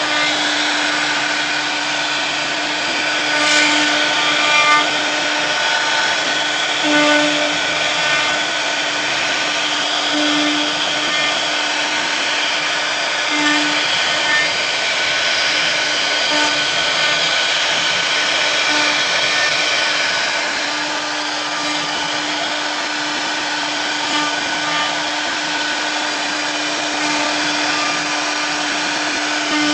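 CNC router spindle running at a steady high pitch while its bit cuts a 2.5D relief design, with a rough cutting hiss that swells and eases a little as the tool moves along its path.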